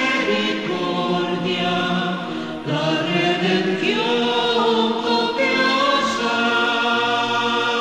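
A choir singing long held chords, changing about a third of the way in and again about two-thirds in: the closing bars of a sung responsorial psalm.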